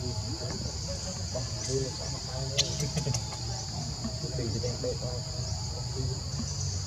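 Steady, high-pitched chorus of forest insects, with a low rumble underneath and a single sharp click about two and a half seconds in.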